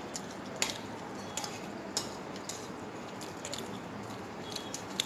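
A metal fork clicking against a plate of chow mein, several sharp clicks spread across the few seconds, over a steady background hiss.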